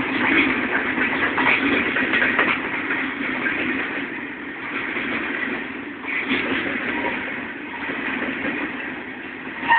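Freight train cars rolling past: a steady rumble and rattle of steel wheels on the rails, with frequent irregular clicks and clanks. A sharper clank comes near the end.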